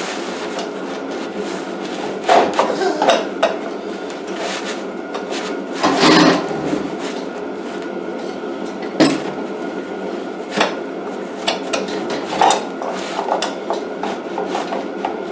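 Irregular metal knocks, clanks and scrapes as the edger's steel blade guard housing is forced by hand back into place on the machine, the loudest clank about six seconds in, over a steady background noise.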